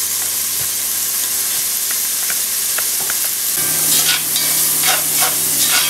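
Diced bacon sizzling in a cast iron Dutch oven, a steady frying hiss with sharper pops and crackles coming thick from about four seconds in.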